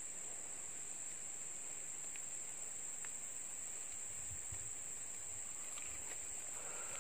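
Insects calling steadily in the surrounding vegetation: one unbroken, high, even buzz.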